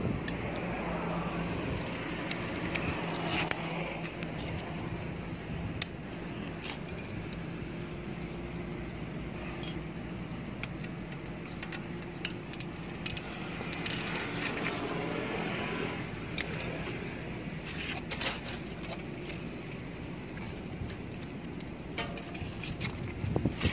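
Scattered small metal clicks and clinks from a bicycle's headset parts (steerer spacers, stem and tools) being handled and adjusted, over a steady low background hum.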